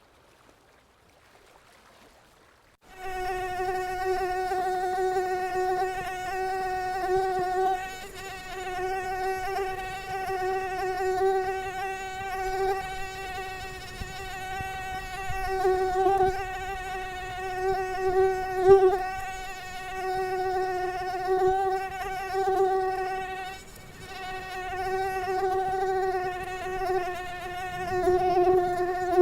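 Mosquito whine in flight: a steady high-pitched hum that starts about three seconds in, swelling and fading in loudness.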